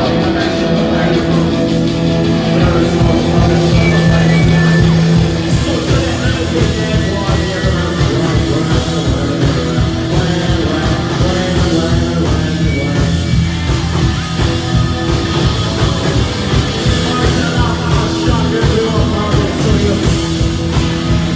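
Live post-punk rock band playing loud: electric bass, electric guitar and drum kit, with a male singer at the microphone. A held low note gives way after about five seconds to a fast, driving drum beat.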